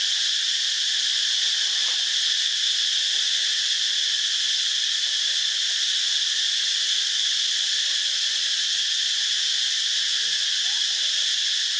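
Steady, unbroken high-pitched drone of an insect chorus.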